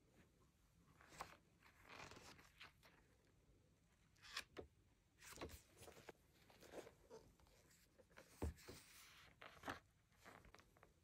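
Faint, irregular rustling of paper as the pages of a hardcover dot-grid journal are turned and smoothed flat by hands in plastic gloves, with a few sharper page flicks.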